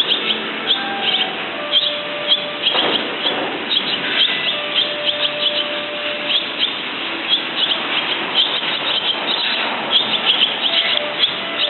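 Barn swallows twittering: a continuous run of short, high chirps.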